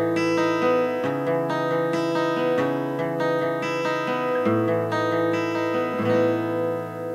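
Background music: a guitar-led song with plucked notes in a steady rhythm.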